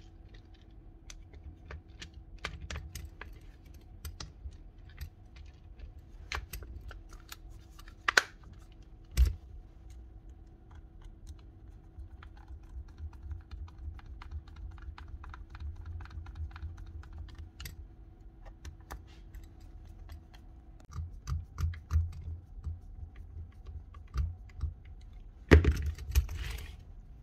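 Light clicks and taps of plastic and metal parts being handled as a cordless drill is put back together after a brush replacement, over a faint steady hum that stops about three quarters of the way through. Near the end comes a louder burst of noise about a second long.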